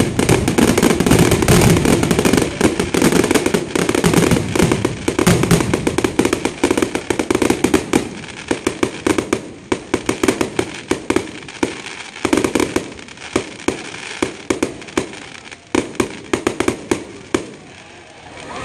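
Fireworks barrage: a dense run of rapid bangs and crackles over a steady roar, thinning after about eight seconds into scattered pops and crackling that die away near the end.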